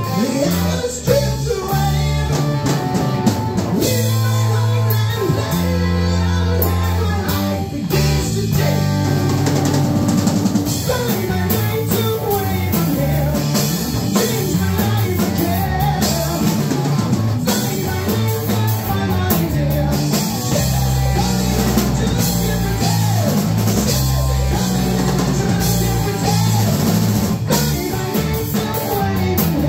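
A live rock trio playing an instrumental stretch of a song: electric guitar, electric bass and a drum kit, loud and steady throughout.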